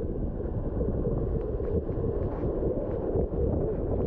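Wind buffeting the microphone over surf washing across a shallow reef, a wave breaking up around the camera near the end.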